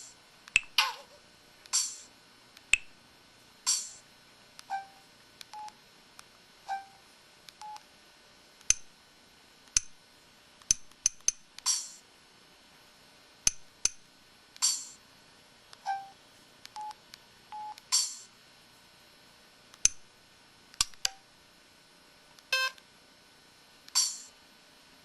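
Samsung SPH-X8500 mobile phone's keypad tones and effect sounds: a string of sharp key-press clicks and short electronic beeps and chimes, irregularly spaced. Near the end comes a short stepped run of tones.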